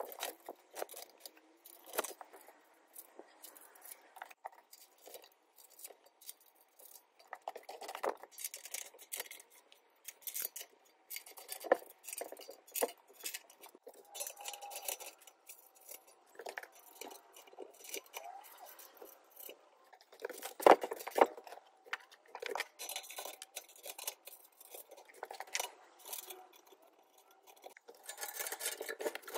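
Metal clinking, tapping and scraping as the drum sander's steel stand is bolted together by hand: bolts, nuts and washers rattling and the steel legs and cross-braces knocking against each other, with one louder knock about two-thirds of the way through.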